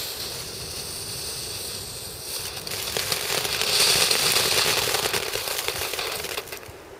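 Small Keller Vulkan ground-fountain firework spraying sparks with a steady hiss. It grows louder and crackly about halfway through, then burns out near the end.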